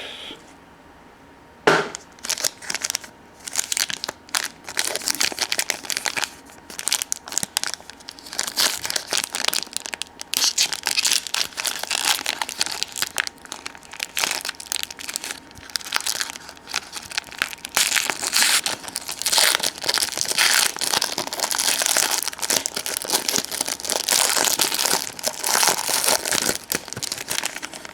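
Wrapping on a pack of hockey trading cards crinkling and tearing as the pack is opened and the cards are handled, in dense, irregular crackles that start about a second and a half in.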